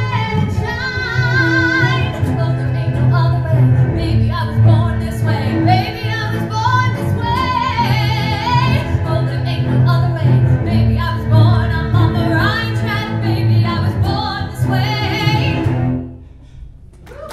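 A woman singing with a cello accompaniment that plays a low repeating line. The music stops about a second before the end.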